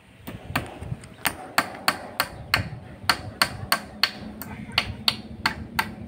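A small hammer striking a nail into a wooden post again and again, about three sharp, even strikes a second, fixing netting to the post.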